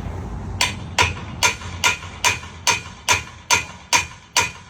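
Hammer blows on a seized crane pulley: about ten evenly spaced strikes, roughly two and a half a second, each with a short ringing tone. The owner thinks the pulley's bolt has rusted onto its bearing.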